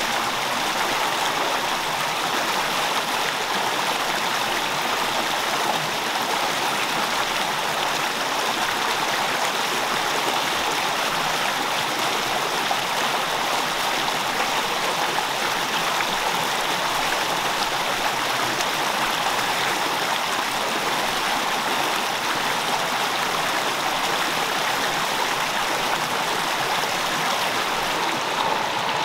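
Rocky mountain stream rushing over and between boulders in small white-water cascades, a steady unbroken rush of water.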